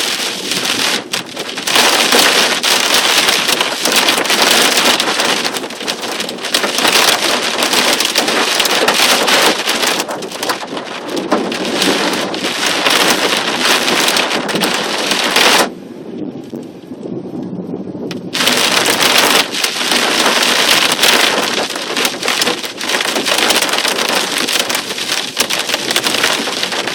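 Torrential rain in a severe thunderstorm, a dense steady hiss of pouring rain. It drops away sharply for about two and a half seconds a little past the middle, then comes back as heavy as before.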